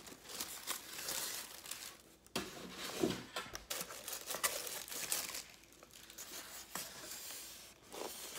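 Thin paper wrapping crinkling and tearing as it is pulled off a model car, a dense run of irregular crackles and rustles with a short lull about two seconds in.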